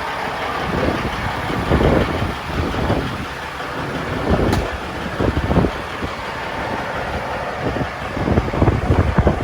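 A semi truck running, with a dense, uneven rushing noise.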